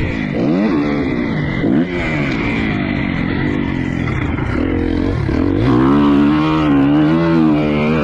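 Motocross dirt bike engine revving up and down as the bike is ridden, its pitch rising and falling several times, then holding fairly steady near the end.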